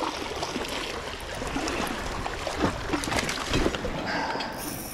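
Sea water rushing and washing, with a few short splashes or knocks, and a brief high whine about four seconds in.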